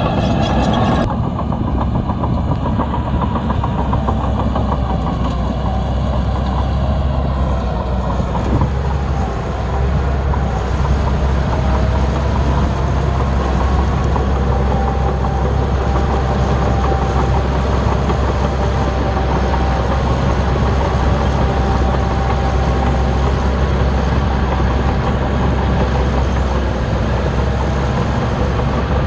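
Bulldozer's diesel engine running steadily under load as it pushes, with a deep rumble and a faint whine above it, dipping briefly about eight seconds in.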